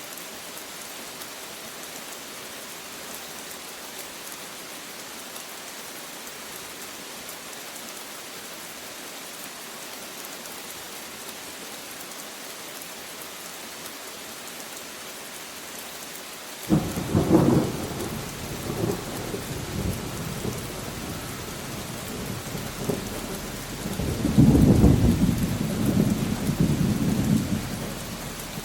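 Steady rain falling, then a thunderclap breaks in suddenly about two-thirds of the way through and rolls into a long rumble that swells again near the end before fading.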